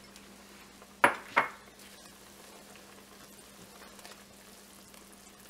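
Two sharp knocks of kitchenware against the cooking pot about a second in, then quiet stirring of a creamy mushroom sauce with a silicone spatula over a faint simmer.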